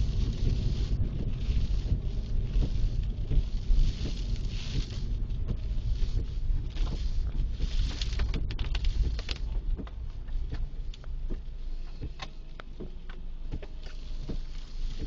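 A car in motion: a steady low rumble of road and wind noise, with scattered light clicks.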